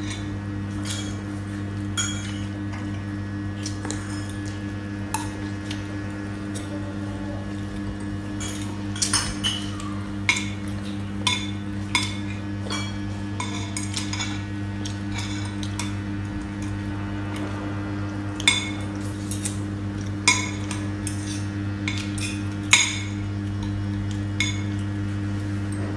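Metal spoons and forks clinking and scraping against ceramic plates and bowls during a meal, in irregular sharp clinks. A steady low hum runs underneath.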